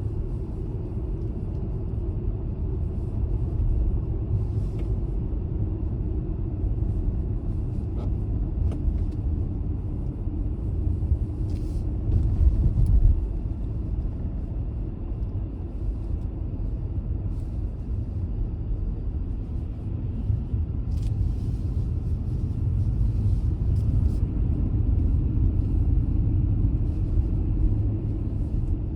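Car driving: a steady low rumble of engine and road noise, growing louder for about a second around twelve seconds in, with a few faint clicks.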